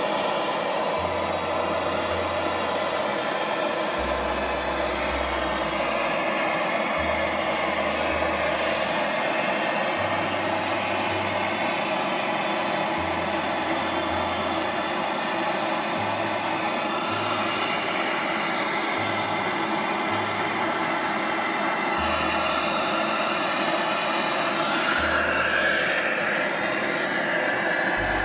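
A steady whirring drone with no breaks, over a low bass line that changes note every second or two, like background music.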